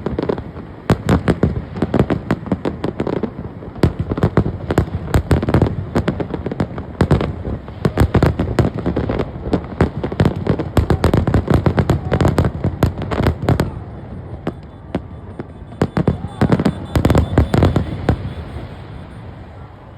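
Fireworks display exploding in rapid, dense volleys of bangs and crackles, thinning out briefly about two-thirds of the way through, then another flurry before fading near the end.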